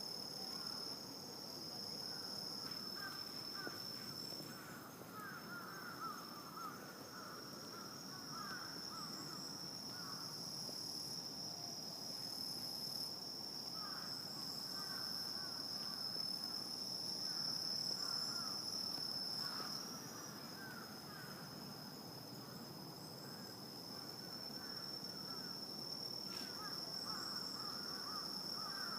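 Night insect chorus: a continuous high, steady cricket-like trill, with lower scratchy chirping calls coming in bunches every few seconds over a soft background hiss.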